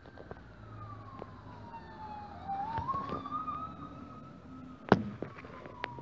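Electronic siren on a Chevy Tahoe fire chief's vehicle sounding a slow wail as it passes: the pitch falls, climbs back up about halfway through while it grows loudest, then falls away again. A sharp knock about five seconds in.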